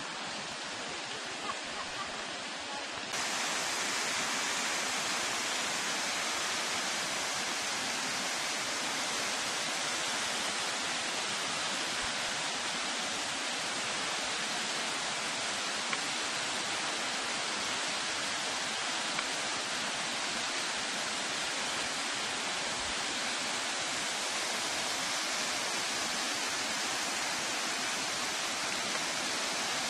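Steady rush of falling and running water from a small waterfall on a river bluff. It gets louder and brighter about three seconds in, then holds even.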